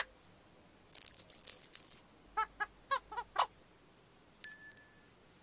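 Playful cartoon sound effects: a high, shaken rattle about a second in, then five quick squeaky rising boops, then a bright bell-like ding that rings out and fades near the end.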